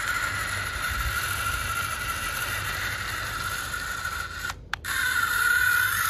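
Small electric drive motor and gearbox of a remote-control toy tractor whining steadily as it strains, stuck in sand with a heavy trailer behind it and its wheel digging in. The whine cuts out briefly about four and a half seconds in, then starts again.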